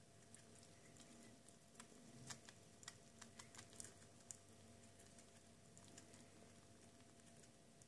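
Faint, irregular small clicks of pet rats eating corn kernels out of a ceramic bowl, thickest about two to four seconds in, over a faint steady hum.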